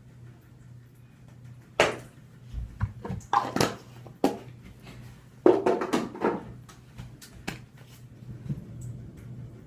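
Handling noises in a small bathroom: a few sharp knocks and clicks with rustling as things are picked up and set down, over a steady low hum.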